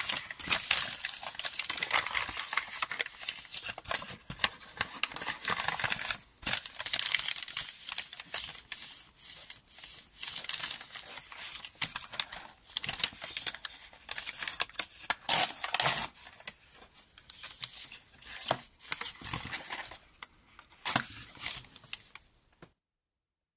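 Scrunched brown packing paper crinkling and rustling in irregular bursts as hands unfold it and smooth it flat, cutting off abruptly just before the end.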